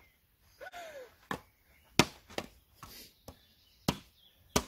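Hands batting an empty plastic water bottle back and forth: about six sharp slaps at irregular intervals, the loudest about two seconds in and near the end.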